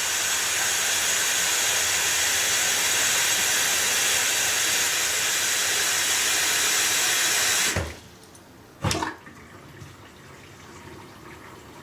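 Bathroom sink faucet running steadily into the basin to test the just-cleared drain. It shuts off abruptly about eight seconds in, and a single short knock follows about a second later.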